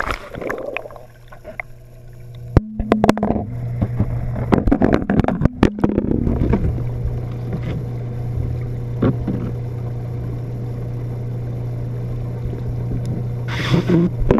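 Hot tub jet pump running with a steady low hum over churning water. It is broken by irregular knocks and splashes in the first half.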